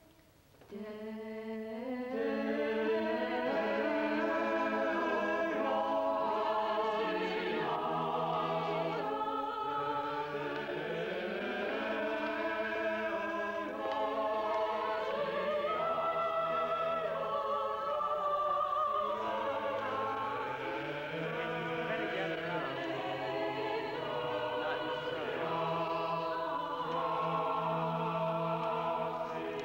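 A mixed choir of men's and women's voices singing slow, long-held chords, coming in about a second in.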